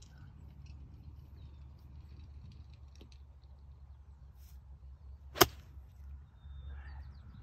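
Golf iron striking a ball out of thick rough: one sharp, loud click about five and a half seconds in, over a low steady rumble.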